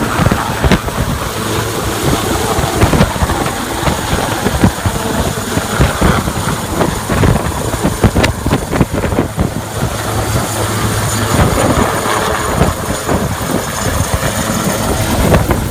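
Military helicopter running close by: loud, steady rotor and engine noise with a rough, irregular low rumble throughout.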